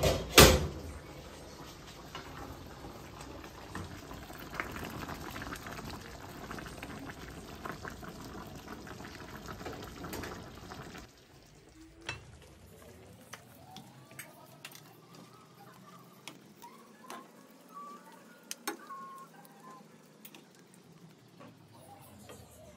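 A glass pot lid knocks down twice on the stove, then a creamy curry simmers and bubbles in a stainless frying pan. About eleven seconds in the sound drops quieter, leaving light taps and scrapes of a ladle stirring the curry in the pan.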